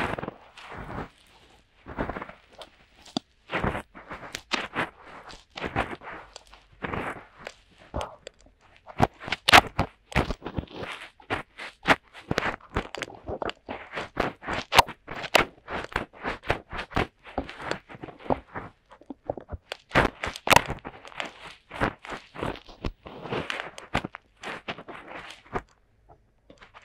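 Fingertips rubbing and scratching in the silicone ears of a DuoPop 2.0 binaural microphone for finger ear-cleaning ASMR: a close, irregular run of crackling scrapes and rustles.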